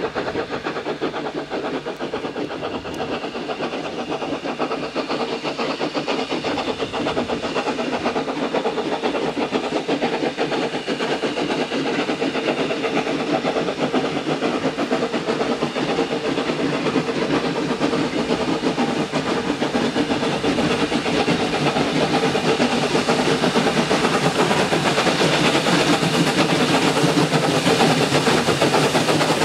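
Double-headed steam train approaching, the locomotives' exhaust beats and the running of the train growing steadily louder as it nears.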